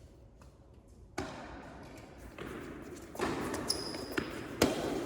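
Tennis balls being struck by rackets and bouncing on an indoor court: a handful of sharp hits over a background hum, the loudest about four and a half seconds in, echoing in the hall.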